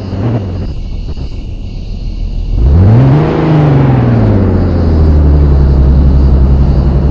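Vehicle engine running low, then revving up about two and a half seconds in and dropping back to a steady low drone.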